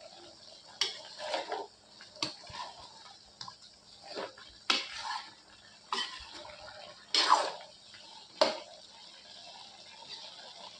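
Spatula stirring chicken pieces in a pan, scraping and knocking against the pan about six times, with the gravy simmering.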